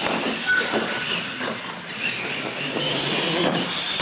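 Two radio-controlled monster trucks racing on a concrete floor: electric motors and gearboxes whining and tyres rumbling as they run up the launch ramps.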